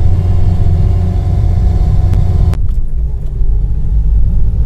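UAZ off-road vehicle's engine labouring as it pulls up a steep mountain road, heard from inside the cabin as a heavy low rumble under a steady engine drone. About halfway through, the higher part of the engine sound drops away abruptly, leaving mostly the low rumble.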